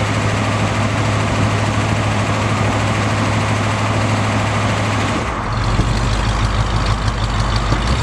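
1957 Ford Thunderbird's V8 idling steadily through its rear exhaust. A little over five seconds in, the note changes and turns lower and rougher.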